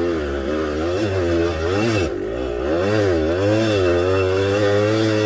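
Kawasaki KDX two-stroke dirt bike engine revving hard under full throttle on a muddy hill climb. The revs surge up and down several times, with a brief dip about two seconds in, as the bike struggles for traction in the mud.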